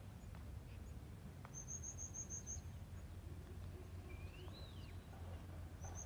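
Small birds calling: a quick run of about seven short, high notes, a single whistle that rises and falls, then another quick run of high notes near the end, over a faint steady low hum of outdoor background.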